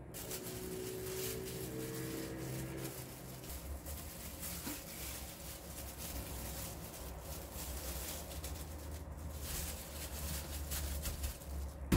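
Gloved hand rustling and patting fish pieces in flour on a stainless steel plate, with small light taps, over a steady low hum.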